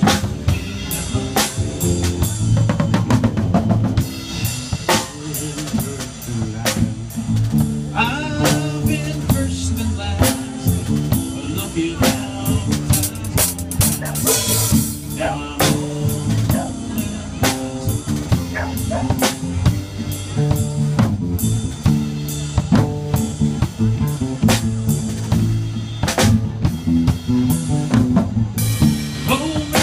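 Live instrumental music with no singing: guitar playing over a steady beat of drum hits.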